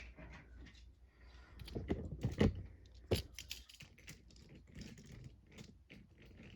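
Irregular light clicks and knocks of toy trains being handled and moved by hand, with two louder knocks about two and a half and three seconds in.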